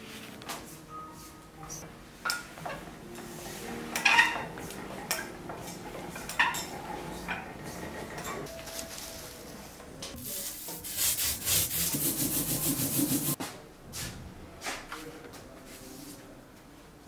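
Paper and a metal printing plate being handled on the bed of a printing press: paper sliding and rustling, with scattered knocks of plate and tools. About ten seconds in, a few seconds of steady, rapid rubbing is the loudest part, and it stops suddenly.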